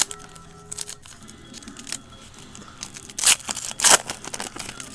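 Foil trading-card pack wrapper crinkling and being torn open, with two louder rips about three and four seconds in.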